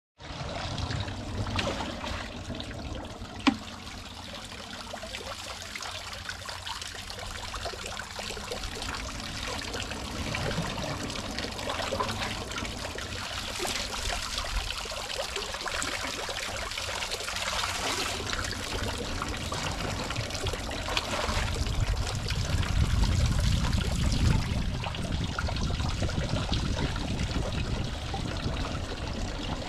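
Water poured from a plastic bag and a plastic can into a tubewell pump, trickling and splashing into the tank below, typical of priming the pump before the engine is started. A single sharp knock about three seconds in, and a louder, lower stretch past the middle.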